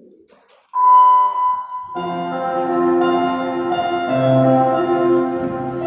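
Recorded classical instrumental music begins: a single bright held note starts suddenly about a second in, then a full orchestral texture of sustained tones comes in about two seconds in and carries on.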